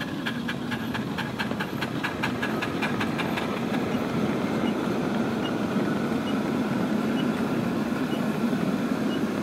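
Ride-on miniature locomotive pulling a string of cars, running steadily as it rolls past. For the first three seconds or so a quick series of ringing metallic clicks, about five a second, sounds over it, then stops.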